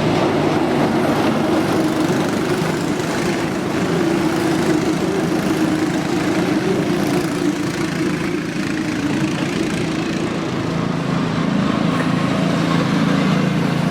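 Cyclekart engines running steadily as the karts lap, a continuous drone that shifts a little in pitch.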